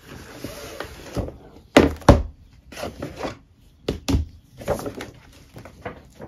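Apple product packaging handled on a desk: the cardboard iPad Air and Apple Pencil boxes and a paper shopping bag rustling and being set down, with sharp knocks, the loudest two close together about two seconds in and two more about four seconds in.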